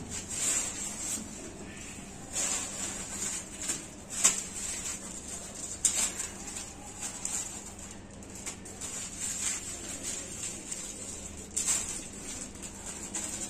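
Plastic bags and a small plastic packet rustling and crinkling in the hands, in short irregular bursts, as a dark fertilizer is shaken out of the packet onto potting soil.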